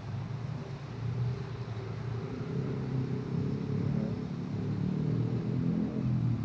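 City road traffic: a steady low rumble of car engines passing on the road below the footbridge, swelling a little toward the end.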